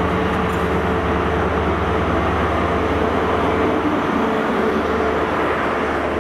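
Class 43 HST diesel power car running past with a steady engine drone. As it goes by, the drone fades into the rolling rumble of the coaches' wheels on the rails.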